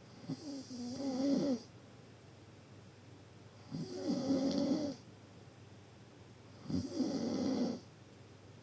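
Deep snoring: three snores about three seconds apart, each lasting about a second, a low pitched drone with a breathy hiss on top.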